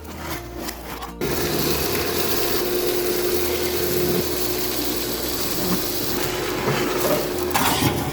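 Shop vacuum switched on about a second in, running with a steady whine and hiss as it sucks old food, rust and debris out of a barbecue grill, then switched off near the end.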